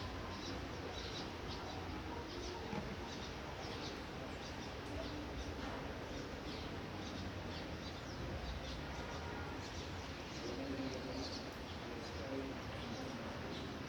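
Light rain falling steadily, with small birds chirping briefly and repeatedly over it.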